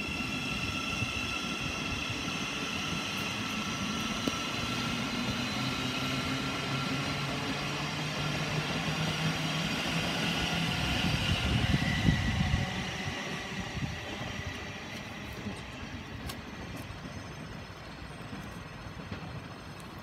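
Electric multiple-unit passenger train running on overhead-wire track, its traction motors whining with tones that rise in pitch as it gathers speed. The sound is loudest about twelve seconds in, then fades away.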